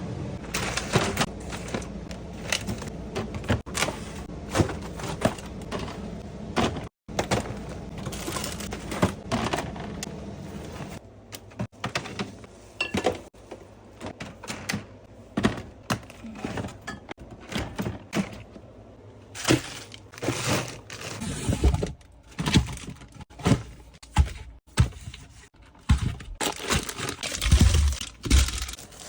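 Groceries being unpacked and put away: repeated knocks and thunks of packages and containers being set down and shuffled onto shelves, with rustling and crinkling of plastic packaging.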